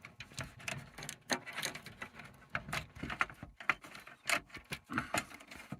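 Irregular small clicks, taps and light rattles of hands working a wire connector off a terminal inside an alarm control panel, disconnecting it before the expansion card goes in.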